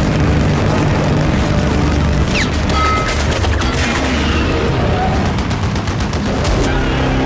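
Action-film sound effects: bursts of rapid gunfire and booms over a heavy, continuous low rumble, with one cluster of shots around the middle and another near the end.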